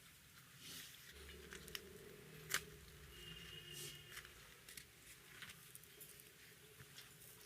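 Faint, scattered clicks and soft squishing and tearing sounds of roti and naan being handled with egg curry, with one sharp click about two and a half seconds in.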